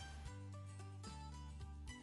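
Quiet background music.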